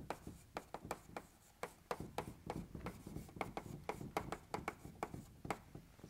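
Handwriting or drawing on a writing surface: a faint, irregular run of short taps and scratches, several a second.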